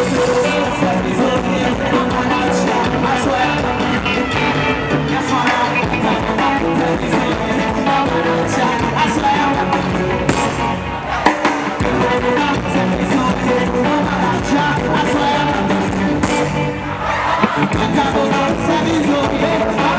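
Live band music with a woman singing into a microphone, loud and steady throughout.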